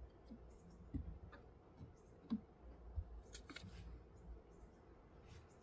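Faint, scattered clicks and light knocks of trunk trim and taillight-area parts being handled and fitted back in place in a 2014 Mercedes-Benz E350's trunk, with a quick cluster of sharper clicks past the middle.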